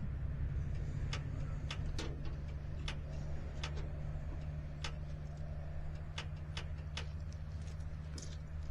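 An engine idling with a steady low hum, with sharp ticks about once a second at uneven intervals.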